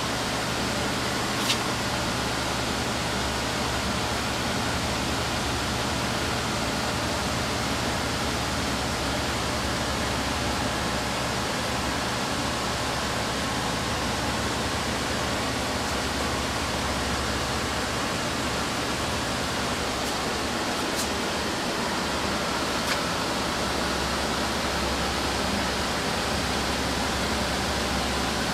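Steady rushing noise over a low electrical hum, with a few faint sharp clicks: one near the start and two about three-quarters of the way through.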